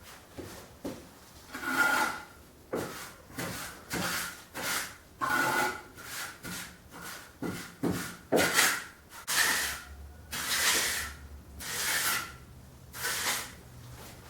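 Wood being scraped or rubbed by hand in about a dozen irregular strokes, roughly one a second, some with a faint squeak.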